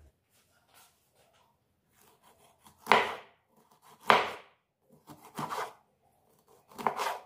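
Knife cutting food on a cutting board: about four separate cuts roughly a second apart, with lighter clicks between them.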